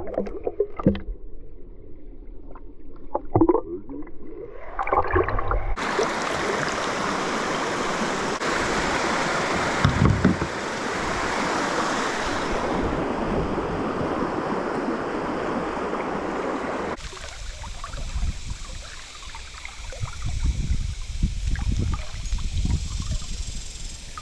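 Muffled splashing and gurgling heard through a submerged camera during a fish release. About six seconds in, the camera comes up into the steady rush of fast, shallow river water beside the kayak. This drops away about seventeen seconds in to quieter sloshing with low, uneven knocks.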